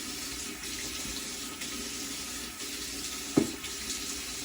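Tap water running steadily into a sink while water is splashed onto the face to wet the stubble for shaving. A single short knock about three and a half seconds in.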